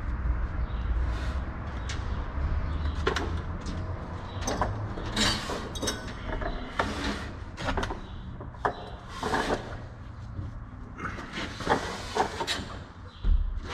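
Paper drywall tape rustling as it is pulled from a banjo taper and pressed by hand onto the wall joint: a series of short swishes with a few sharp clicks, over a low steady hum.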